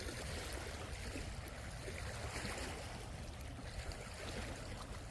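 Steady outdoor background noise by the water: an even rushing hiss over a flickering low rumble, with no distinct event standing out.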